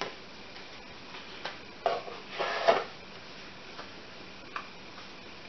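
Stiff postcards being handled and shuffled by hand: a few light taps and clicks with brief paper rustles, the loudest cluster about halfway through.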